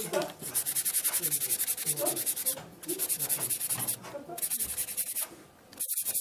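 Bamboo taketombo blade being sanded on a sanding pad: rapid back-and-forth strokes give a dry, rasping scrape in runs of a second or two, with brief pauses between them. The sanding smooths the mended blade.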